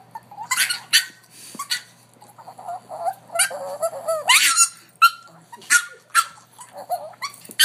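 A dog making a series of short, high-pitched cries, about a dozen at irregular intervals, one rising in pitch around the middle.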